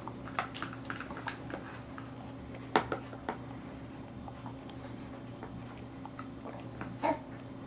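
Baby being spoon-fed: scattered small clicks and taps of a spoon against a plastic bowl and tray, mixed with wet mouth sounds as the baby chews and mouths the spoon. A sharper knock comes about three seconds in.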